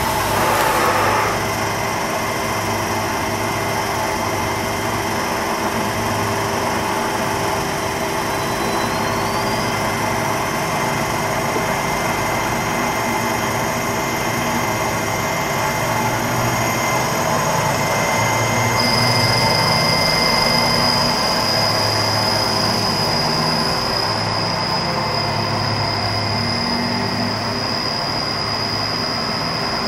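Toyoda Select G100-II CNC cylindrical grinder running under power: a steady machine hum and whine with a pulsing low drone. A high tone rises in pitch about a third of the way in, and another steady high tone comes in about two-thirds through.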